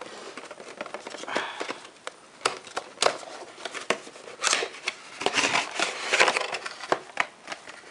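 Cardboard product box being handled, its inner box sliding out of the outer sleeve: scraping and rustling cardboard with scattered sharp taps and clicks.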